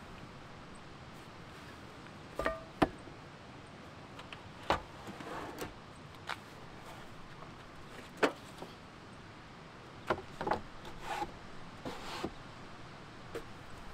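Knocks and clunks of a vehicle's pull-out kitchen drawer unit as its drawers and slide-out shelf are pulled open and a camp stove case is handled: about a dozen separate knocks and clicks, the sharpest about three seconds in and again about eight seconds in.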